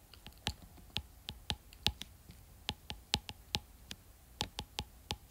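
Stylus tip tapping and clicking on a tablet's glass screen while handwriting Japanese characters: a quick, irregular string of sharp clicks, about four a second.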